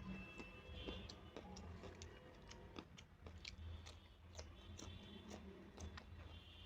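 Faint, close-up eating sounds: a person chewing a mouthful of rice and fried fish, with irregular small wet mouth clicks.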